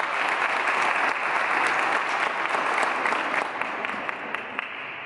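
Audience applause: many people clapping their hands. It tapers off and fades away during the second half.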